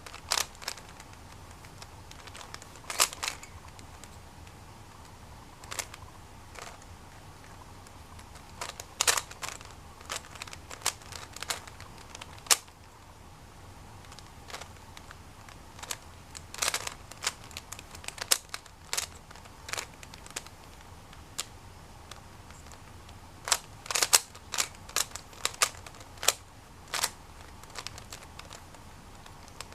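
A 3x3 speed cube's layers being turned by hand during a solve: irregular sharp plastic clicks, now single, now in quick runs of several, with short pauses between the runs.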